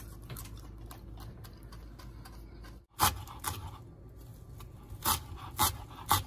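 Chef's knife chopping fresh parsley on a plastic cutting board: a handful of sharp, irregularly spaced knock-and-scrape strokes of the blade against the board, starting about three seconds in after a stretch of low, steady background sound.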